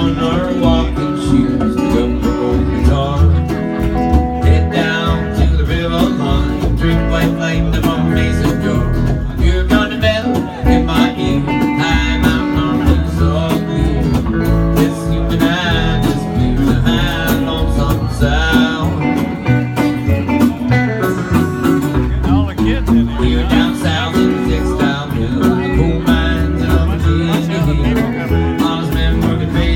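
Steel-string acoustic guitar played live in a country style, a continuous picked and strummed passage ahead of the first sung verse.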